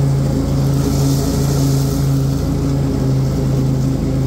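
Exmark Quest zero-turn mower's Briggs & Stratton Extended Life Series engine running steadily at mowing speed, with the 48-inch fabricated deck's blades engaged while it cuts grass.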